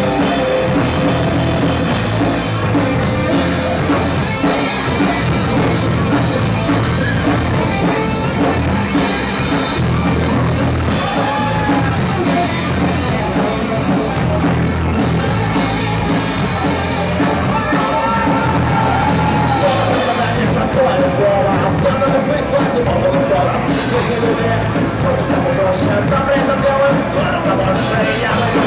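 Rock band playing live, with a sung melody line over drum kit, bass and guitars, at a steady loud level.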